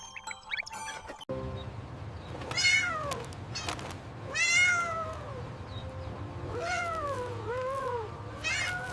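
Kitten meowing about five times, each call falling in pitch, the first two the loudest, over a low steady hum that comes in about a second in.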